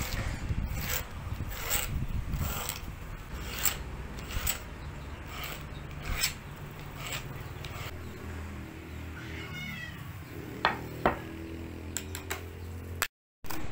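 A steel scribe scratching around a wooden disc onto a sheet of sandpaper, in short strokes about one a second. Later a brief wavering high call and two sharp clicks.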